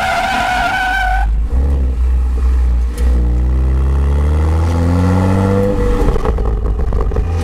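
BMW F30 335i on the move: tyres squeal steadily for about the first second. From about three seconds in, its turbocharged N55 inline-six pulls gently in second gear with a slowly rising pitch, then eases off near the six-second mark.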